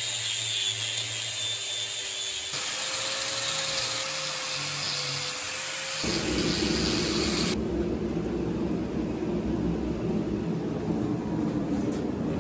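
Electric angle grinder with a sanding disc running against a carbon-steel railway-spike knife blade. About six seconds in, it gives way to the steady, louder low rumble of a gas forge burner running.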